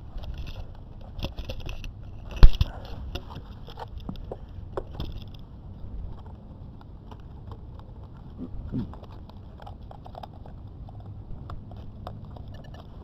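Handling noise on a drone-mounted action camera: rustles and clicks against the camera, with one heavy thump about two and a half seconds in and a lighter knock near nine seconds; no motor running.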